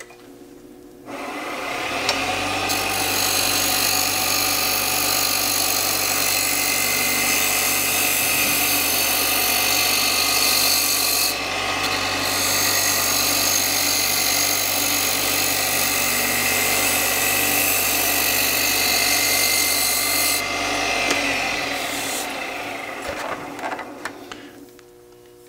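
Wood lathe turning at about 2500 RPM while a spindle roughing gouge, held on its side with the bevel rubbing, takes a long slicing cut along a cylindrical wood blank: a steady motor hum under the even hiss of the cutting edge shaving wood, with a short break in the cut about halfway through. The lathe starts about a second in and spins down near the end.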